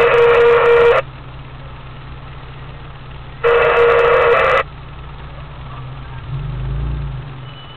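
Car horn sounding in two steady blasts: one that stops about a second in, then a second of about a second near the middle. A vehicle engine runs underneath, louder for a moment near the end.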